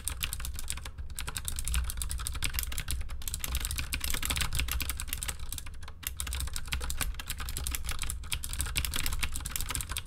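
Continuous typing at ordinary speed on a V60 Mini 60% mechanical keyboard with clicky Cherry MX Green switches, close to the microphone: a rapid, loud patter of sharp key clicks, with brief pauses about three and six seconds in.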